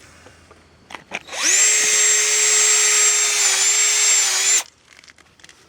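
Power drill boring into 4000 psi fibre-filled concrete: the motor spins up quickly, runs at a steady pitch with a high whine for about three seconds, then stops suddenly.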